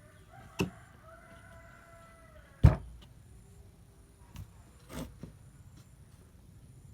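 A rooster crows in the background, one drawn-out call of about two and a half seconds. Three sharp knocks of wood being handled sound through it, the loudest just as the crow ends.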